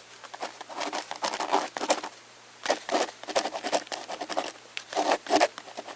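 Microwave oven running with a steady low hum, while irregular crackling and scratching sounds come and go over it as the shaving cream inside heats.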